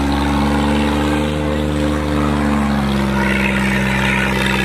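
Mahindra 265 DI tractor's three-cylinder diesel engine running steadily under load as it pulls a disc harrow through the soil, its pitch wavering slightly.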